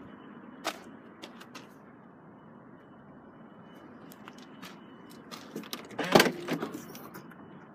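A BMW 520d saloon's boot lid being unlatched and opened: a quick cluster of clicks and a clunk about six seconds in, the loudest thing here. Before it come a few scattered light clicks of handling noise.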